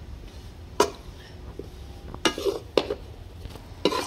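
A metal spatula stirring gram flour roasting in ghee, scraping and knocking against the iron kadhai: about four sharp clanks, the first about a second in and the rest in the second half.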